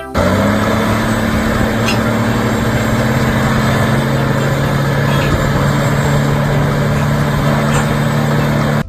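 Heavy machine's engine running steadily at an even pitch, then cutting off suddenly near the end.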